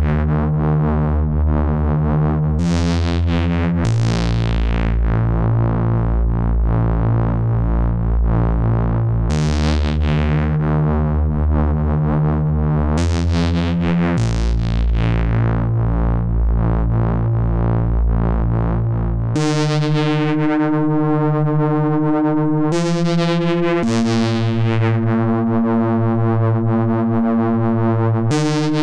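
Dreadbox Erebus v3 analog synthesizer playing long, low held notes that change every few seconds. Each note starts bright and mellows as the filter closes. About 19 seconds in, the line moves up to higher notes.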